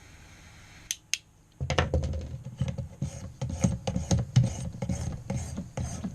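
Sharpening stone on a guided knife-sharpening system being stroked back and forth along a clamped knife blade, in rapid scraping strokes several times a second. The strokes start about a second and a half in, after two sharp clicks.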